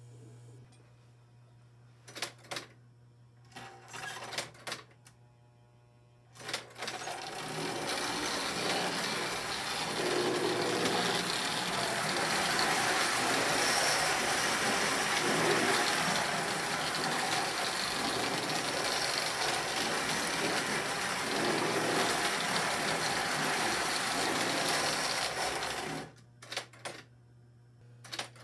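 Vintage tinplate toy train running around an O27 track loop: an even, loud rattle of motor and wheels on the tinplate rails that starts about six seconds in and cuts off a couple of seconds before the end. Before it, a low electrical hum and a few clicks.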